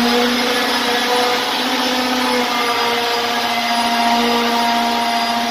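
Electric drill boring into the wooden ceiling framing overhead. Its motor runs at a steady, high pitch under load, then stops abruptly at the end.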